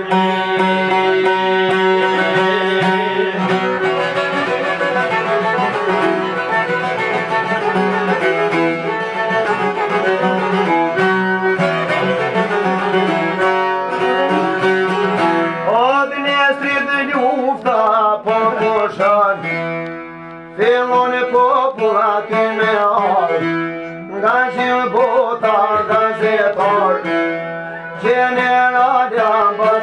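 Albanian folk music: a plucked long-necked lute and a bowed string instrument play steady held notes. About halfway through, a man's voice comes in, singing a wavering, ornamented melody over them.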